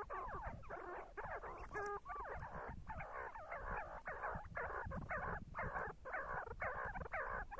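See-see partridges calling: a steady run of repeated whistled notes, more than two a second.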